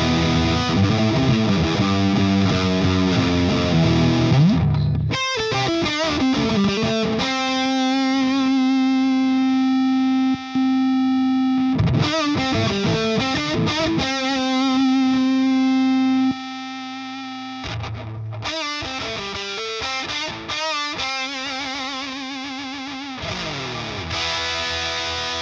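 Electric guitar played through a Frank the Anvil FX Kitsune fuzz pedal, a hand-built modified Big Muff, with the tone knob set low at about 9 o'clock. Heavy fuzz chords and riffs with sliding notes, and a long note held for several seconds twice in the middle.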